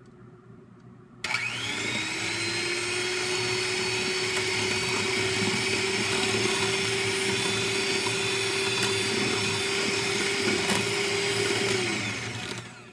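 Kenwood electric hand mixer beating egg yolks in a stainless steel bowl: the motor switches on about a second in, whines up to a steady speed and holds it, then winds down and stops near the end.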